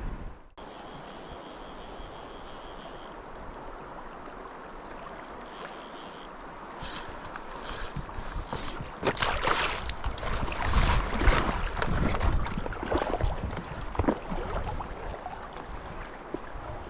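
River water running steadily. From about nine seconds in, louder uneven rumbling and splashing noise with short knocks comes in over it.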